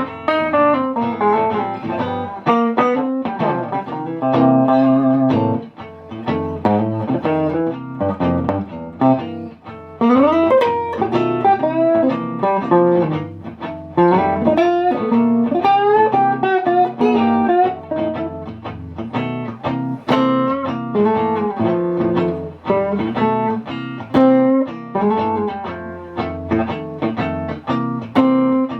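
Electric guitar played through a closed-back 10-inch cabinet with a neodymium Jensen Tornado speaker, heard through the camera's microphone. It mixes chords with single-note lead lines whose pitch bends up and down.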